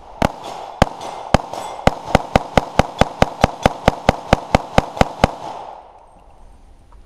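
AR-style pistol fired in rapid semi-automatic fire: about nineteen shots, the first four about half a second apart, then speeding up to about four a second, stopping a little over five seconds in.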